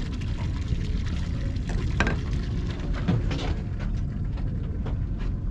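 Water sloshing and lapping against a boat's hull over a steady low rumble, with a few sharp knocks, the loudest about two seconds in.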